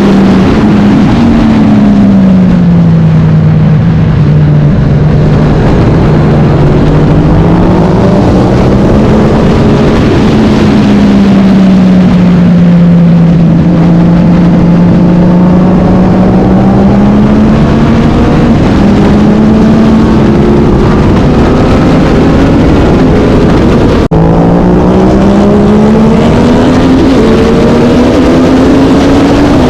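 Vintage racing motorcycle engine at race speed, heard loud and close, its revs sinking and climbing as it runs through the corners. About three-quarters of the way through there is a sharp break, and then the revs climb steadily as it accelerates.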